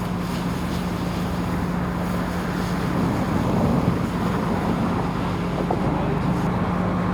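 Steady vehicle engine hum with a constant low drone, unchanging throughout.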